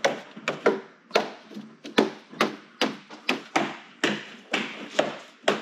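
Gloved hands patting and knocking a foam core panel down into wet structural putty on a fibreglass daggerboard case side, seating it: a quick, uneven series of knocks, about two or three a second.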